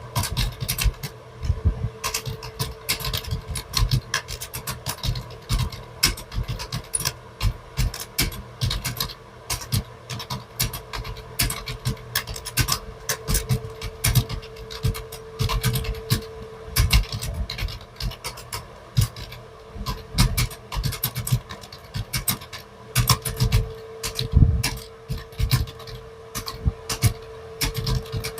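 Fast, continuous typing on a computer keyboard, with keys clicking several times a second in an uneven rhythm, over a faint steady hum.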